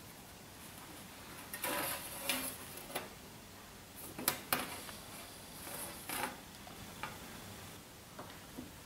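A pointed hand tool scratching and scraping across a coated printing plate, in a few short, scratchy bursts with a sharp click a little past the middle.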